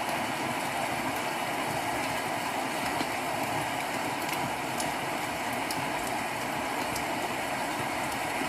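Recorded rain played back through a Tronsmart Mirtune C2 speaker: a steady hiss of falling rain with scattered light ticks of drops, and no thunder.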